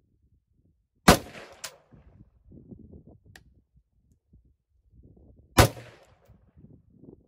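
Two rifle shots from a POF 415 firing 75-grain .223 ammunition, about four and a half seconds apart, each a sharp crack with a short ringing tail. A fainter sharp crack follows the first shot about half a second later.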